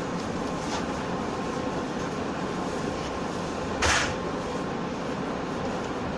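Steady running noise inside the passenger car of a JR West 117-series electric train, with a short, louder hiss about four seconds in.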